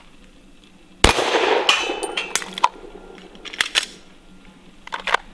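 Pistol shots on an outdoor range: one loud shot about a second in with a long echo, then several shorter, quieter sharp cracks, some with a brief metallic ring.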